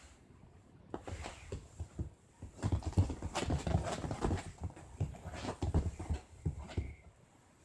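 Irregular knocking and rustling, busiest in the middle and tapering off near the end.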